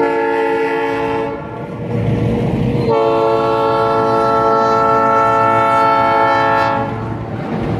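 Diesel locomotive's air horn sounding a chord of several tones: a short blast, then a long blast of about four seconds, with the locomotive's engine running underneath as it approaches.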